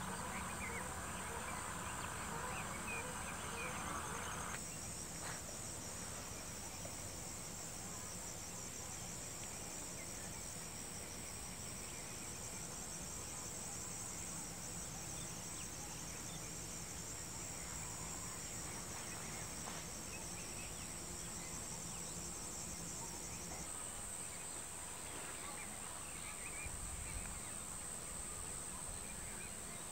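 Steady chorus of insects, a continuous high trill. A second, lower buzz stops abruptly about four seconds in, and the high trill shifts slightly at the same moment.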